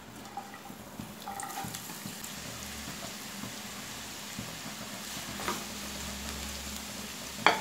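Sliced onions sizzling in hot oil as they are tipped into a pan: a steady, low frying hiss.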